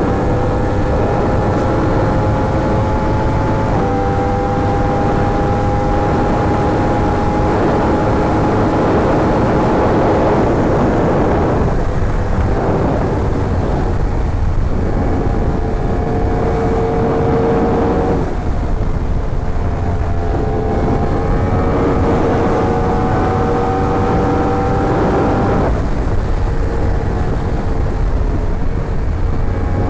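Yamaha R1's inline-four engine under way on the road, its note climbing slowly and dropping sharply at gear changes, about three times, over steady wind rush on the microphone.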